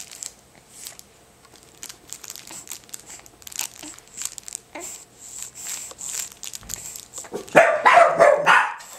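Crinkle-filled fabric wings of a Lamaze Jacques the Peacock baby toy crackling in short scrunches as a baby grips and chews them. Near the end, a quick run of loud, short yelping calls.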